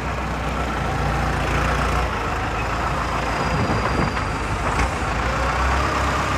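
Ford cattle truck's diesel engine idling steadily.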